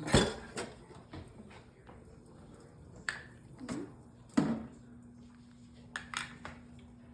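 Kitchen clatter: sharp knocks and clinks of a pot, dishes or utensils being handled while popcorn is set up. A low steady hum comes on just after the loudest knock, a little past halfway.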